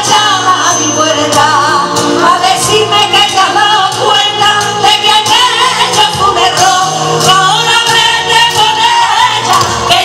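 Two women singing a sevillanas-style song into microphones with wavering held notes, over a live keyboard and band, amplified through a PA.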